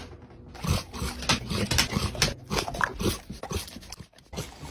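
A dog vocalizing in a quick run of short, sharp sounds.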